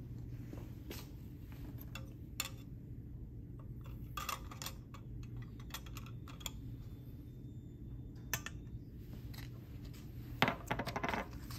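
Small metal tin cans and a glass alcohol burner being handled and set down on a lab bench: scattered light clicks and knocks, with a louder cluster of knocks near the end, over a steady low hum.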